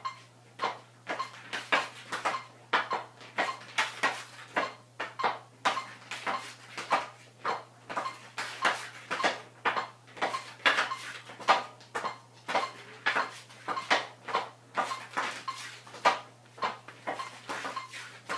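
Hockey stick blade clacking against a stickhandling ball on a hard floor during quick side-to-side stickhandling, about three sharp taps a second in an uneven rhythm, with a faint low hum underneath.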